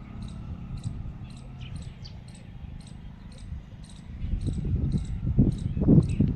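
Insect chirping in short, regular pulses about twice a second over a low outdoor rumble. From about four seconds in, louder uneven low rumbles and thumps come in, like wind on the microphone.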